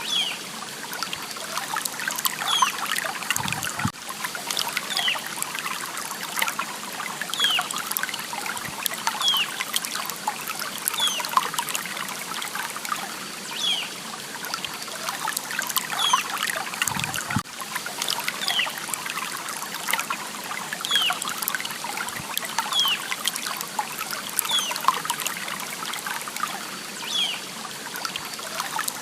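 A small stream trickling and babbling steadily over stones, full of little splashes and gurgles. Short high falling chirps recur every second or two above the water.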